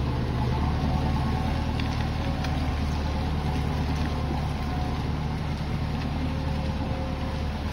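John Deere tractor's diesel engine running steadily while pulling a trailer loaded with oil palm fruit bunches.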